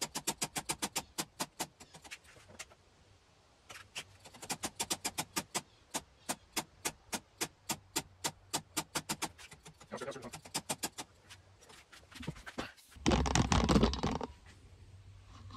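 Rapid, even clicking at about five a second as the clutch lever of a Honda ST1300 is flicked repeatedly to work air bubbles up out of the hydraulic clutch line while it is being bled. A short, louder rustling burst comes near the end.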